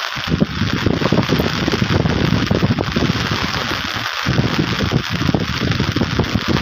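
Wind buffeting the microphone: a steady rushing noise with irregular low rumbling gusts that drop out briefly about four seconds in.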